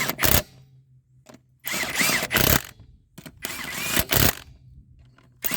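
Half-inch impact wrench run on the lug nuts in short bursts of about a second, hammering each nut snug with a light tap rather than full torque. There are about four bursts with brief pauses between them.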